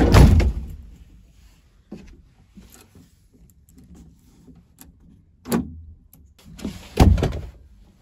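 Peugeot Boxer van's sliding side door rolling shut with a clatter at the start, then a few clunks of the door and its lock, the heaviest a thud about seven seconds in.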